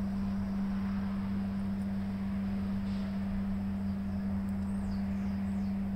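Steady low hum holding one constant low tone, with no sudden sounds over it.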